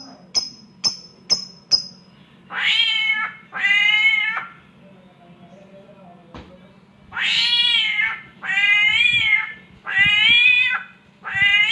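A samyong bird mimicking a cat's mating yowl: six drawn-out meows, a pair about two and a half seconds in and four more from about seven seconds on. Before them, in the first two seconds, come about five short, high chirps.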